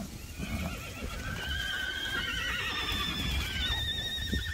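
A horse neighing: one long, quavering whinny that starts about a second in and lasts about three seconds.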